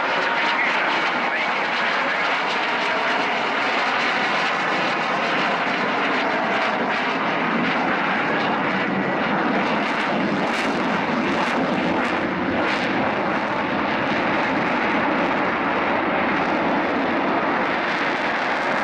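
Eurofighter Typhoon's twin EJ200 turbofans running on afterburner: a loud, steady jet roar overhead, with a few sharp crackles about ten to thirteen seconds in.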